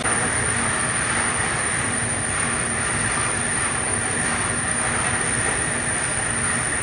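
Steady industrial running noise of a belt conveyor and limestone stacker, with a constant high-pitched whine over a broad rumble.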